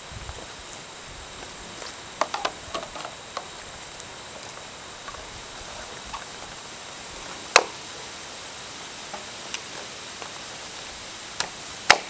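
Electrical tape and black service cables being handled and wrapped by hand, heard as scattered sharp clicks and snaps. A small cluster comes about two seconds in, and the two loudest single snaps are about four seconds apart, all over a steady faint hiss.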